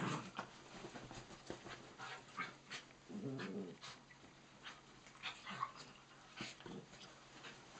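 Miniature dachshunds and cocker spaniels play-fighting on a bed: short dog vocal sounds, the longest lasting about half a second around three seconds in, among light scuffling on the bedding.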